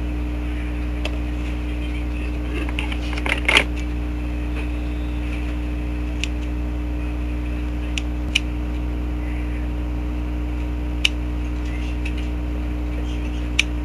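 Scissors snipping through a fringe of hair: several short sharp snips several seconds apart, with a quick cluster about three and a half seconds in. Under them runs a steady low hum.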